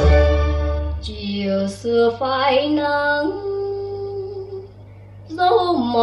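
Cassette playback on an Akai GX-75MkII tape deck: a song with a woman singing held, vibrato notes over instrumental backing and a low bass line. It dips briefly a little before the end, then the voice and backing come back.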